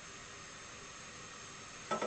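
Kitchen tap running water into a cooking pot held under it, a steady hiss, with a sudden knock near the end.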